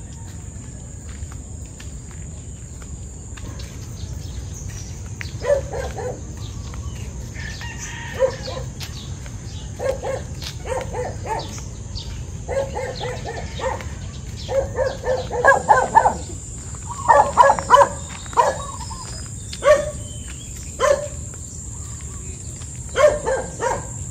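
Chickens calling in groups of short, sharp clucks and cackles, which start about five seconds in and come thickest and loudest around the middle, over a steady low rumble.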